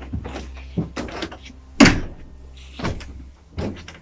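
Footsteps climbing wooden stairs: a string of uneven thumps, the loudest about two seconds in.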